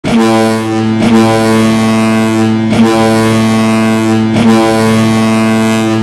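Ice hockey goal horn: a low, ship-style horn blaring steadily, freshly re-sounded three times at intervals of one to two seconds.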